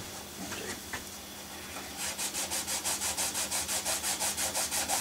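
Quick back-and-forth rubbing by hand over a model railway layout, about seven strokes a second, starting about two seconds in after a few light handling clicks.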